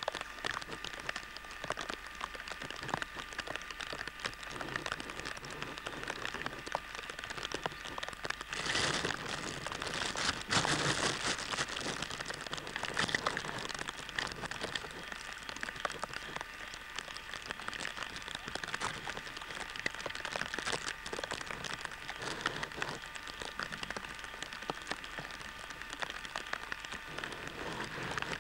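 Rain pattering steadily, a dense hiss of fine drops, heard through a camcorder microphone. It swells briefly twice, about nine and eleven seconds in.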